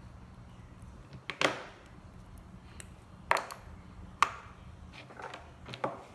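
Small metal and plastic flip-key parts clicking sharply as they are handled and set down: four separate clicks spread over several seconds, the first two loudest.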